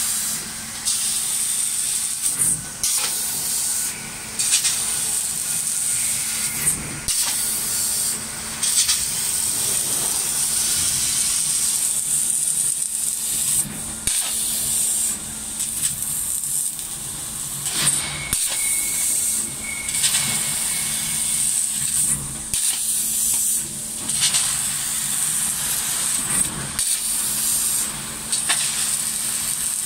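4000 W fiber laser cutter's head hissing steadily with its assist-gas jet, broken by frequent brief dropouts every second or two. A low steady hum runs underneath.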